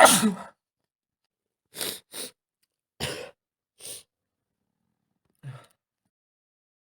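A man with a cold sneezes once, loudly and wetly. Five shorter, noisy sniffs and breaths follow over the next few seconds, the last one with a brief low voiced sound.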